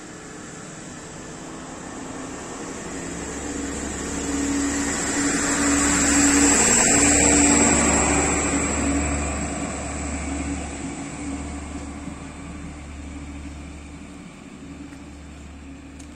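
DB class 628 diesel multiple unit pulling out of the station. Its underfloor diesel engine drones and the wheels run on the rails, with a high whine above. The sound swells to its loudest about seven seconds in as the train passes, then fades as it draws away.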